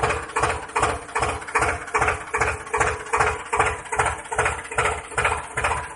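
Tractor engine idling, with a slow, regular thud about two to three times a second over a steady hum.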